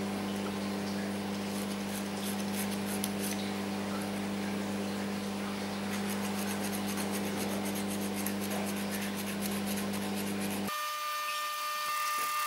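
A small piece of wood being rubbed and sanded by hand, with light scratching strokes over a steady low machine hum. Near the end the hum cuts off, and a higher steady whine with quick regular ticks takes over.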